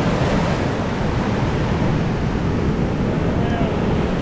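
Breaking surf washing in over the shallows at the water's edge: a steady rushing wash of whitewater.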